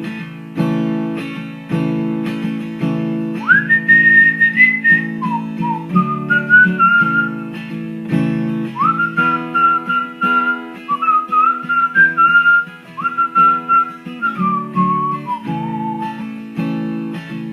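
Acoustic guitar strumming chords, with a whistled melody over it that comes in a few seconds in and stops a little before the end.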